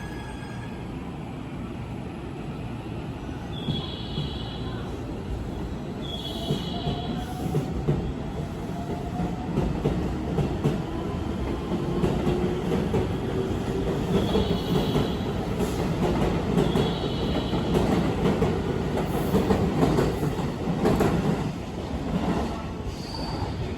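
Electric commuter train moving along the station platform: rumbling wheels and a motor whine that rises in pitch, growing louder until near the end. A short high double beep sounds again every few seconds.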